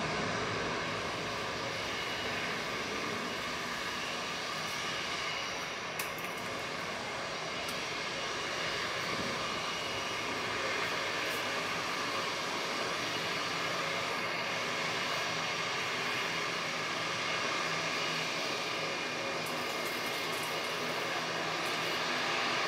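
Jet airliner engines running steadily: a rush of noise with a whine of several steady tones over it, and a single sharp click about six seconds in.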